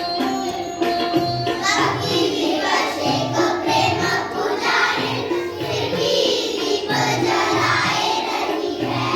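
Children singing a Krishna devotional song over instrumental music with a regular drum beat; the voices come in about a second and a half in.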